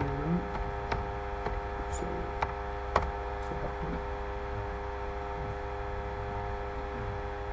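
Steady electrical mains hum of several tones at once, with a handful of sharp clicks in the first three seconds, the last one the loudest: keystrokes on a computer keyboard as a password is typed and entered.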